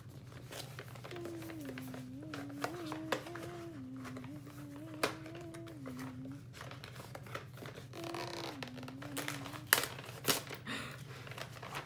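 Thin cardboard product box being ripped open by hand: crinkling and tearing with a few sharp rips, the loudest near the end. Over it someone hums a tune in two stretches, stepping between a few notes.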